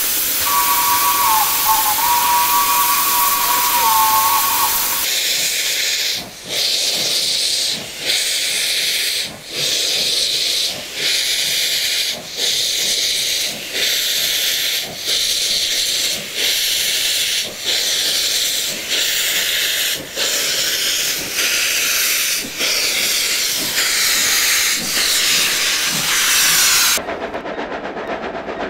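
A steam locomotive's whistle sounds for about four seconds over loud hissing steam, then the engine gets under way with loud hissing exhaust beats, about one every second and a half and steady. Near the end this gives way to a quieter train running on the rails.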